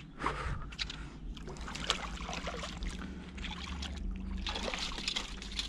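Water sloshing and splashing around a kayak, with scattered light clicks and knocks of gear against the hull.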